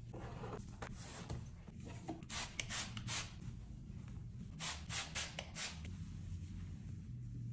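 A cloth wiping a smooth white desk surface: quick back-and-forth rubbing swishes, about three strokes a second, in two short runs.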